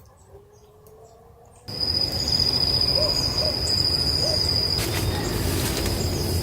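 Outdoor dawn ambience in the bush: a few short, low hooting bird calls over a steady high-pitched whine and a low rumble, the whole scene cutting in suddenly about a second and a half in.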